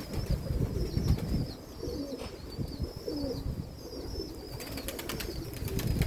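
Domestic pigeons cooing, a series of low, wavering calls, over a low rumble of wind on the microphone.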